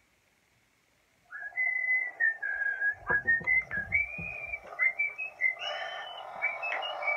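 About a second of near silence, then a person whistling a tune in clear sliding notes, with a few thumps partway through.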